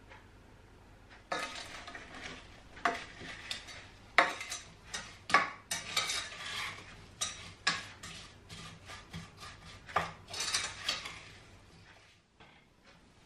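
A spoon stirring sliced apples in a stainless steel saucepan, with irregular clinks and scrapes against the pan. It starts about a second in and stops near the end.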